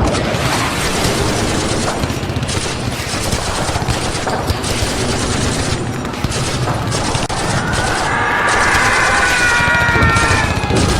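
Staged battle soundscape of dense, continuous rifle and machine-gun fire, shots overlapping without a break. Wavering shouting voices rise over the gunfire in the last few seconds.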